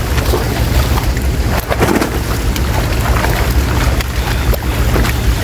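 Steady wind rumble on the microphone, with irregular splashing from many fish thrashing in shallow water inside a drawn-in net.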